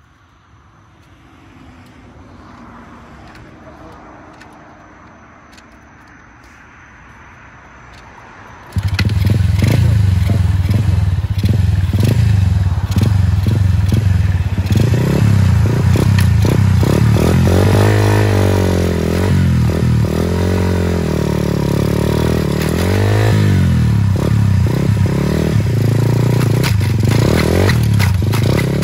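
A 125 cc Chinese pit bike's single-cylinder engine comes in loud and sudden about nine seconds in, after a faint low hum. It revs hard, rising and falling in pitch, while the rear tyre spins and scrubs on the concrete.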